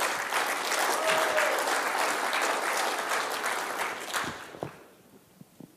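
Audience applauding, then dying away about four and a half seconds in.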